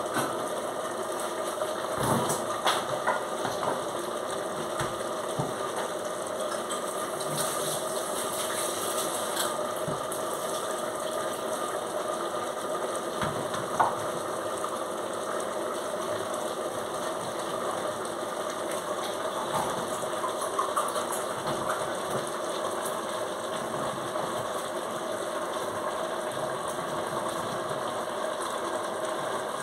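Stovetop pressure cooker on a gas burner hissing steadily, its weighted valve rattling, the sign that it has come up to pressure. A few sharp clinks, the loudest about 14 seconds in.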